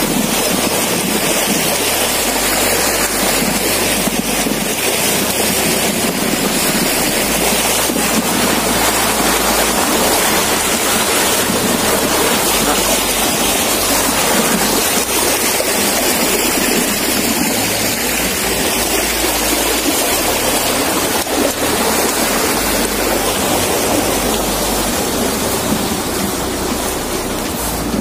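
Steady rushing noise with no pitch, even in level throughout.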